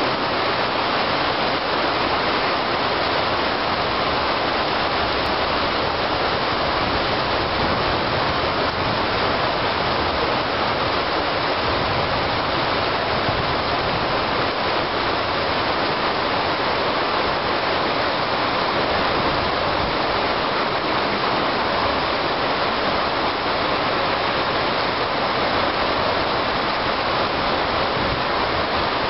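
Heavy rain falling steadily: a dense, even hiss of downpour that holds at the same level throughout.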